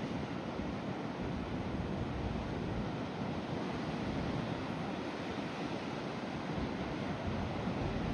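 Sea waves on the shore, a steady rush of surf.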